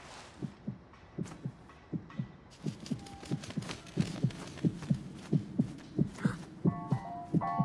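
A film-soundtrack heartbeat: paired low lub-dub thumps about every 0.7 seconds, growing louder. A hiss joins about a third of the way in, and a high chiming melody begins near the end.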